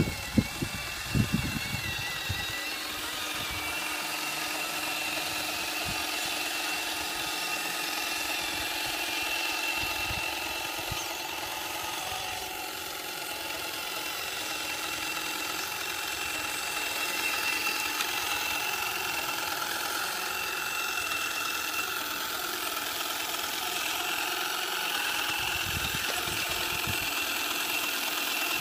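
Electric drive and hydraulic pump motors of a scale RC JCB 3CX backhoe loader whining steadily as it drives and works its front bucket, with a few sharp knocks in the first two seconds.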